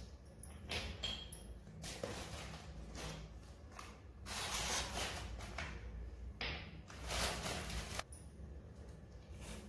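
Dry rustling in several separate bursts of about a second each, from a small plastic packet being handled.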